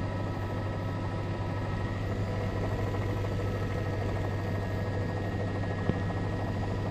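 Steady drone of a news helicopter's engine and rotor heard from on board, a low hum with several steady tones, and one brief click near the end.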